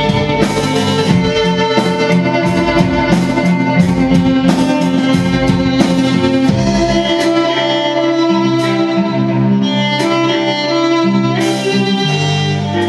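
Symphony orchestra playing a rock arrangement, violins to the fore over held string chords and drum hits. About seven seconds in the drumming thins out, leaving mostly the sustained strings.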